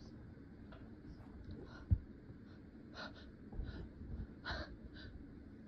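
A person's short, shaky breaths and small gasps while fighting back a tickly-nose sneeze: several quiet puffs of breath in the second half. A single sharp thump about two seconds in is the loudest sound.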